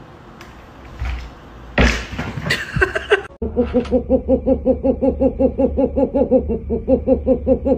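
Quiet room sound with a few short knocks and a brief voice-like sound two to three seconds in, then, from about three and a half seconds in, music with a pitched note pulsing evenly about three times a second.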